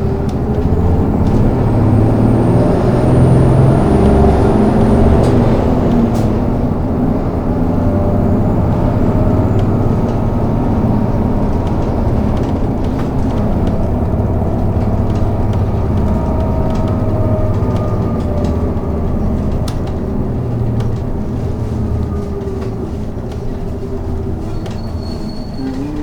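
City bus heard from inside the passenger cabin while driving: a steady engine and road rumble whose engine note slowly rises and falls with speed, with light rattles and clicks from the body.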